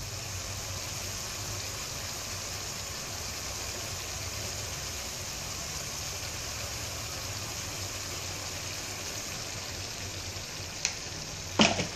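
Steady sizzle of shredded cabbage, carrot and prawns frying in a metal wok, with a low hum underneath; a single light click near the end.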